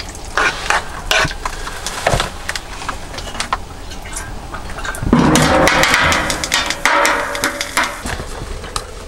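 A spoon clicking and scraping in a frying pan of sizzling pike pieces on a portable gas stove. About five seconds in, a loud crackling sizzle bursts up as a little water goes into the hot pan, then eases off after a few seconds.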